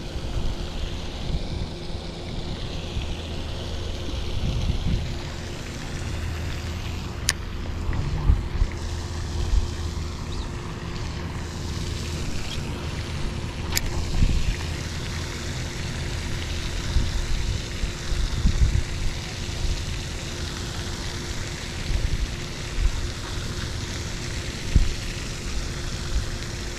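Wind buffeting the microphone in uneven gusts over a steady background hiss, with two faint sharp clicks, one about seven seconds in and one about fourteen seconds in.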